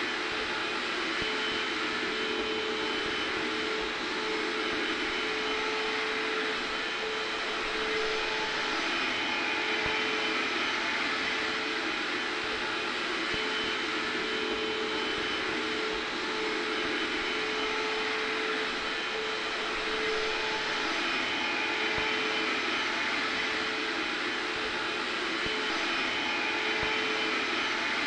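Hair dryer blowing steadily, an even rushing noise with a steady hum, with a vacuum cleaner running in the background.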